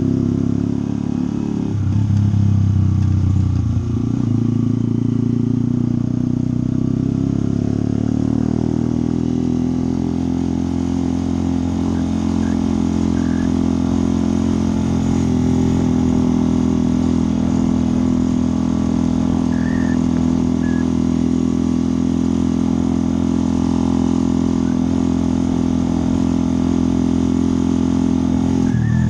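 Motorcycle engine running at riding speed. Its note shifts a couple of seconds in, then holds steady.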